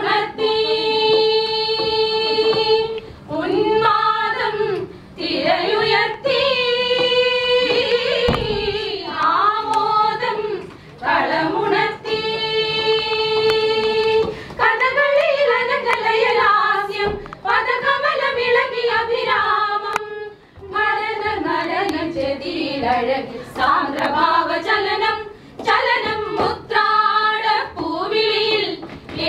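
A group of women singing a Malayalam song, with long held notes about a second in and again about halfway through.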